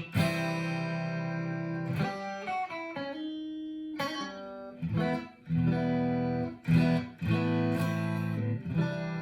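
Clean electric guitar, a Stratocaster through a 1980 Fender Pro Reverb amp, strumming a series of chords through the Signal Cheyne B6K compressor pedal. Each chord is struck and left to ring at an even level until the next, roughly every one to two seconds.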